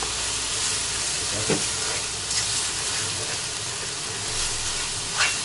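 Catfish fillet and onions sizzling steadily in hot oil in a kazan, with a spatula stirring them and knocking against the pot twice, once about a second and a half in and once near the end.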